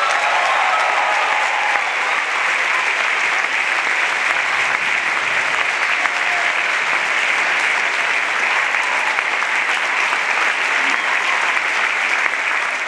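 Large audience applauding steadily, with a few cheers near the start.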